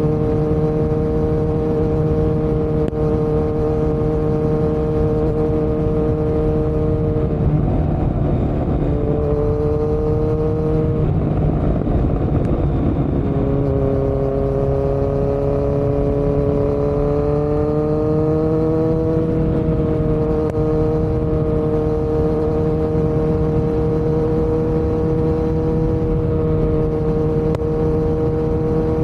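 Kawasaki Z900's inline-four engine running under way through an aftermarket Yoshimura muffler and Delkevic headers with no dB killer. The engine note breaks twice, settles lower, climbs slowly and then holds steady.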